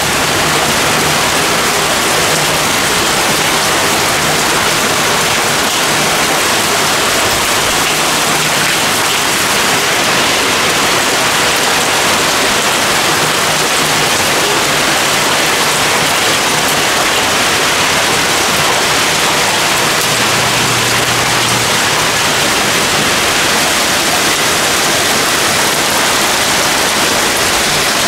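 Heavy rain pouring down in a thunderstorm, a loud, steady, dense hiss.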